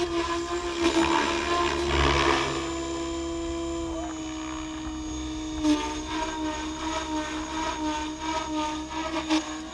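Goblin Kraken 580 electric radio-controlled helicopter in aerobatic flight: a steady high whine from the electric drive and spinning rotors, with rushes of blade noise about one to two and a half seconds in, and a faster, pulsing blade chop from about six seconds on.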